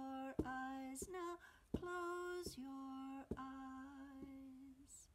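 A woman sings a slow lullaby-style song in long held notes, stepping down from a higher pitch to a lower one, and stops near the end. She beats a homemade canister drum with a padded beater in a steady beat, about every two-thirds of a second.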